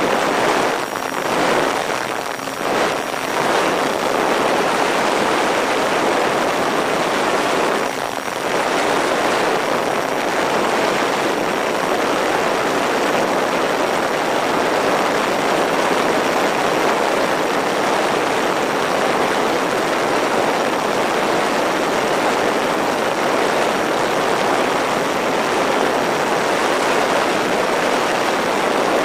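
MFD Crosswind Nimbus Pro RC plane in flight, heard from a camera on its back: a steady rush of airflow and propeller noise, dipping briefly a few times in the first seconds and again around eight seconds in.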